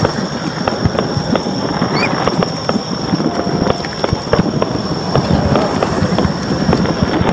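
Fireworks crackling and popping in a dense, irregular barrage of short cracks, with a steady high whine underneath.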